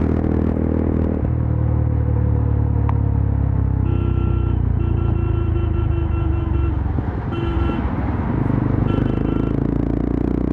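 Yezdi Adventure's single-cylinder engine and exhaust running at highway speed, its note shifting about a second in. A steady higher tone sounds on and off for several seconds midway.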